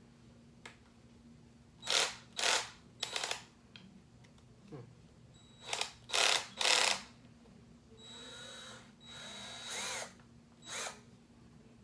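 Craftsman cordless drill run in short trigger pulls: several brief whirs, then two longer runs in which the motor spins up and winds down, and a last short burst near the end.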